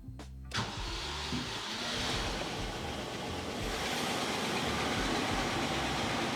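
Background music that cuts off about half a second in, giving way to a Range Rover Classic's engine idling steadily.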